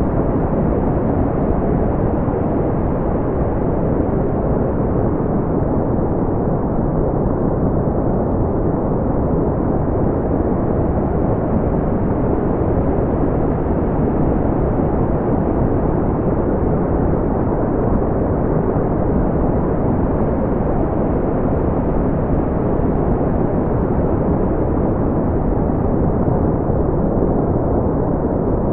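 Generated brown noise: a steady, deep rushing hiss with most of its weight low down and little above the midrange.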